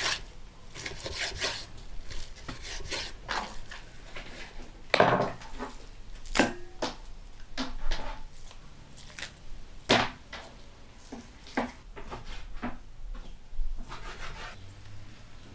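Knife cutting raw meat into chunks on a wooden cutting board: irregular knocks of the blade against the board, a few of them sharply louder.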